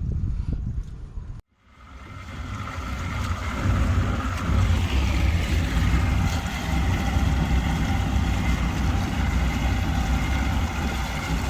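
An engine running steadily, fading in after a sudden cut to silence about a second and a half in.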